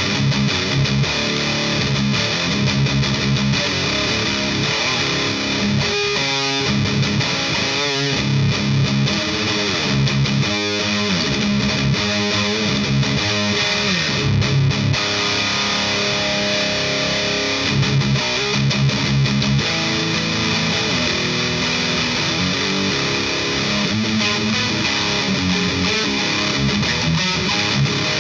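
High-gain distorted electric guitar through a Rivera Knucklehead Reverb KR100 tube amp, with the boost engaged, playing heavy riffs of low chugging notes mixed with sustained, ringing notes.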